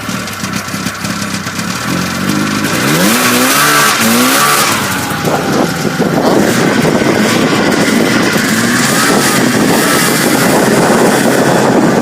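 Snowmobile engine revving as the machine pulls away, its pitch climbing a few seconds in, then a steady loud rush of engine noise while riding.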